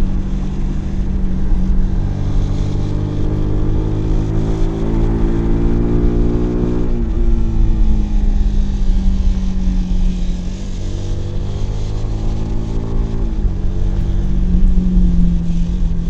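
Kawasaki W175's single-cylinder four-stroke engine and exhaust under load while riding. The pitch climbs steadily, drops sharply about seven seconds in, climbs again, and drops again near the end, as with upshifts through the gears.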